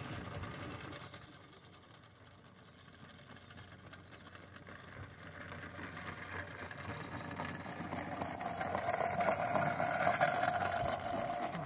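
Small diesel-outline miniature railway locomotive hauling a van approaching and passing close by: a steady mechanical running sound with a steady whine, growing louder over several seconds and loudest as it passes near the end.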